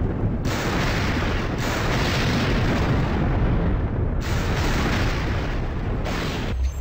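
Thunder from a tropical storm, rumbling loudly and continuously.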